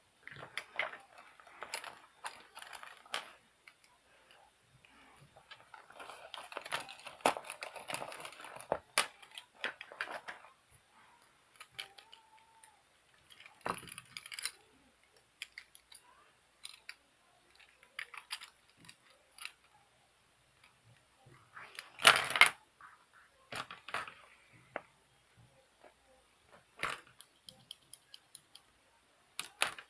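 Stationery being handled in a pencil case: pens and other small hard items clicking and clattering, with rustling, and a louder clatter about 22 seconds in.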